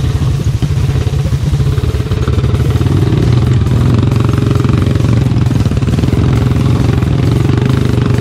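Motorcycle engine running steadily while riding, with a dense, even pulsing and a slight rise in loudness about two seconds in.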